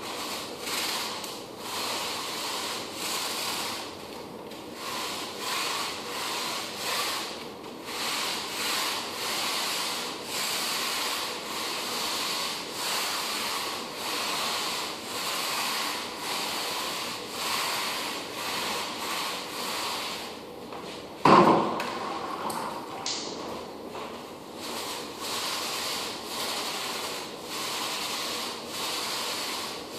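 A pole-mounted floor applicator rubbed back and forth over a hardwood floor in repeated swishing strokes, about one a second, spreading a wet coating. A single sharp knock about two-thirds of the way through.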